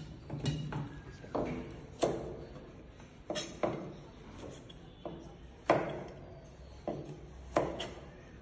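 Kitchen knife chopping a carrot on a plastic cutting board: about eight sharp, irregularly spaced knocks of the blade through to the board.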